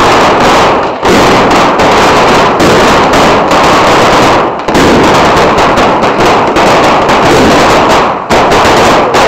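A firecracker battery going off at very close range, the bangs coming so fast they run together into one continuous loud barrage, with a few brief dips.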